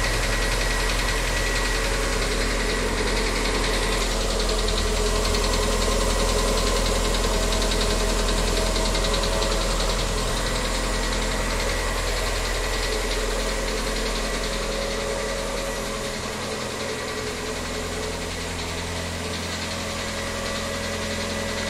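Volkswagen Gol G6 engine idling just after a cold start, with an abnormal noise that appears whenever it is started cold and grows worse day by day, on a car only four months and 4,000 km old. About sixteen seconds in, the sound gets slightly quieter and the low hum changes.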